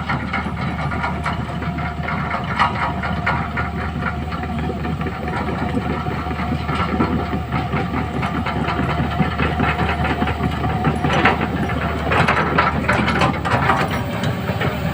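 Large hydraulic excavator's diesel engine running steadily, with repeated clanks and rattles from the working machine that come thicker near the end.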